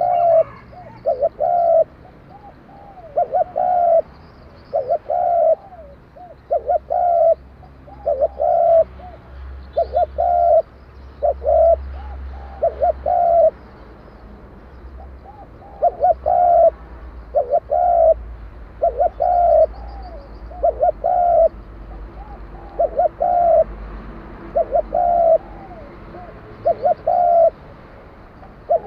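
Spotted dove cooing over and over, in short phrases of a few coos each that follow one another every second or two, in the 'đồng kim' voice type that Vietnamese dove keepers prize.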